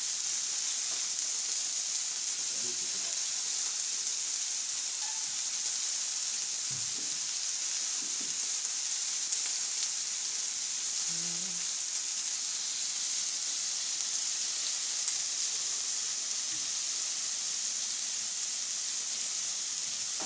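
Vegetables (tomato slices, peppers and mushrooms) sizzling steadily on a hot plancha griddle, with a few faint clicks of metal tongs against the plate as they are turned.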